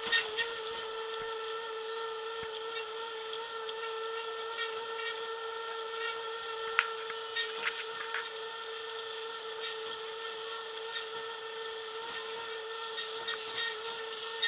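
Boardwalk tram car running at a steady speed, its drive giving a constant high whine, with a few light clicks.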